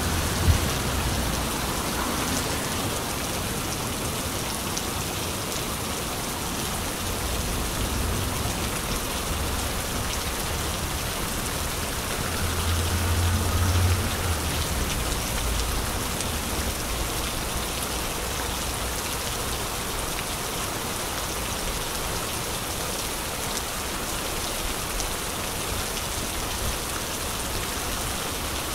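Steady rain falling and spattering on wet pavement, an even hiss throughout, with a brief low rumble about halfway through.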